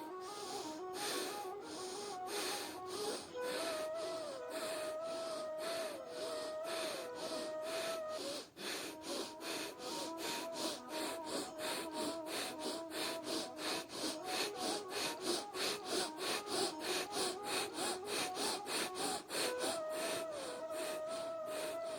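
Bhastrika pranayama, the bellows breath: rapid, forceful breaths through the nose in an even rhythm of about two to three a second, over soft background music.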